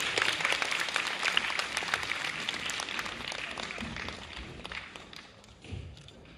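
Audience applause: dense clapping that gradually dies away.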